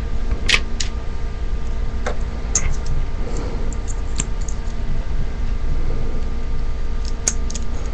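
Plastic Lego bricks being handled, giving a few scattered light clicks, over a steady low hum.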